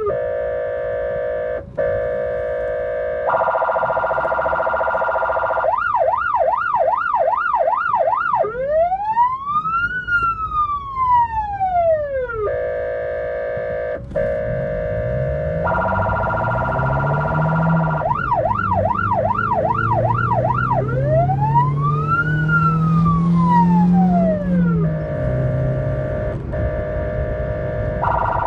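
Ambulance electronic siren cycling through its tones, twice over: a held low tone, a held higher tone, a fast yelp, then one slow rising-and-falling wail. In the second half the vehicle's engine rises in pitch as it accelerates.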